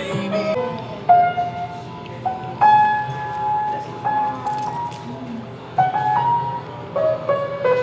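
Background music: a melody of held notes that change every second or so.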